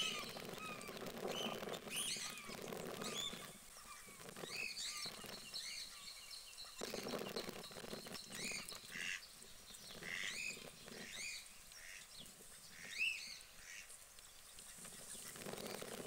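Guinea pig squeaking: many short, high, rising-and-falling chirps, scattered irregularly, with the loudest one about thirteen seconds in.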